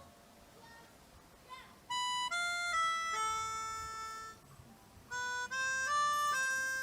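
A simple melody played in held notes on a reedy-sounding instrument, starting about two seconds in, breaking off briefly, then going on with a rising run of notes.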